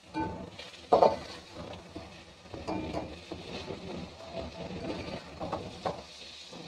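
Perforated metal spoon scraping and knocking against an aluminium pot as pieces of mutton are stirred and fried in oil, with a sharp knock about a second in.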